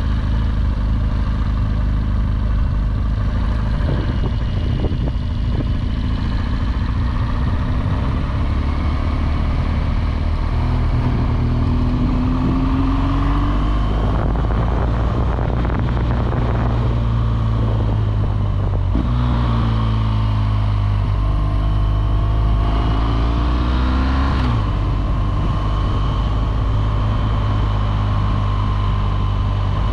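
BMW R1200GS Adventure's liquid-cooled boxer twin running under way, with wind rush. The engine pitch climbs under acceleration and drops suddenly at an upshift about two-thirds of the way through, then climbs again and drops at a second upshift near the end.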